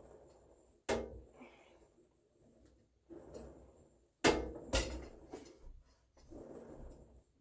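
Cable weight stack and rope attachment of a Marcy home gym clanking during rope tricep extensions: a sharp metallic clank about a second in and a couple more a little after the middle, with softer rattling and rustling between.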